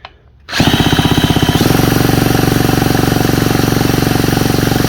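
Cordless drill spinning a Stihl 450 chainsaw's engine over through a socket on the flywheel nut. It makes a loud motor whine with a rapid even pulsing from the engine's compression, and picks up speed after about a second and a half. The engine turns but never fires: it has no spark, which the owner puts down to a failed ignition coil.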